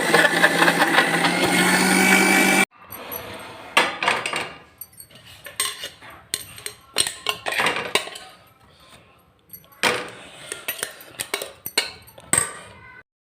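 Electric kitchen mixer grinder running with a steady motor hum, then stopping suddenly under three seconds in. Scattered knocks and clinks of kitchen utensils follow.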